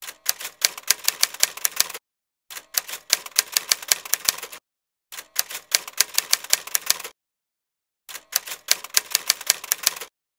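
Typewriter keystroke sound effect: four runs of rapid key clicks, each about two seconds long, with short silent pauses between them.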